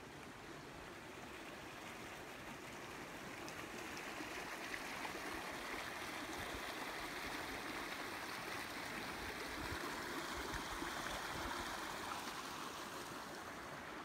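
Steady rushing of running water from a nearby stream, growing a little louder through the middle and easing near the end.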